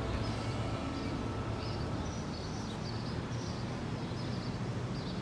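Steady outdoor rumble with small birds chirping now and then.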